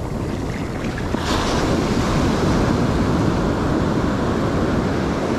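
Ocean surf washing up the beach, swelling about a second in as a wave breaks and its whitewater rushes in, then staying loud and steady.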